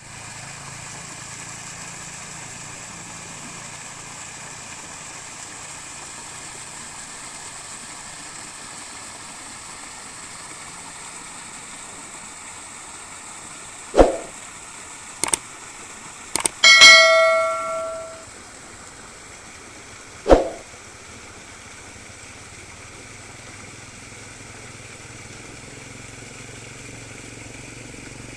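Steady rushing background noise, broken near the middle by a few sharp knocks and one ringing, bell-like ding that fades over about a second and a half.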